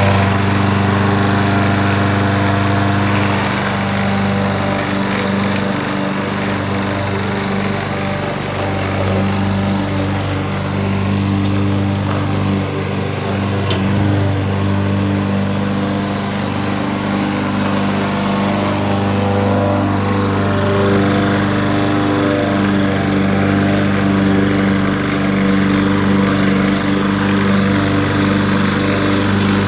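Craftsman gas walk-behind lawn mower's single-cylinder four-stroke engine running steadily while mowing grass.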